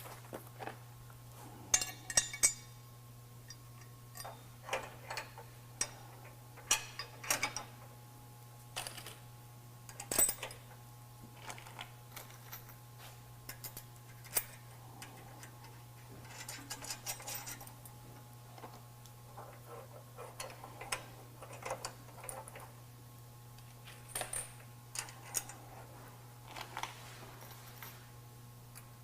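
Irregular metallic clicks and clinks of hand tools, nuts and bolts as steel bumper brackets are bolted to the truck frame, some coming in quick little runs, over a steady low hum.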